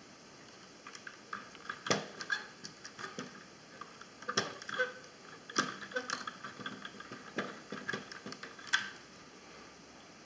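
Irregular light clicks and small scrapes of hands and a small tool working the plastic parts of a mini quadcopter, prying loose its video transmitter.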